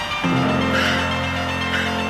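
Background music: sustained synth chords over a steady beat, with the bass chord changing about a quarter second in.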